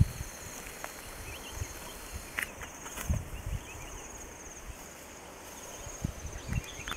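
Insects trilling in a steady pulsing chorus over open-air ambience, with a few soft low thuds scattered through.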